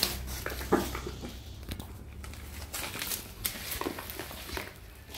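A dog eating cooked rice off a plastic lid: irregular chewing and licking clicks.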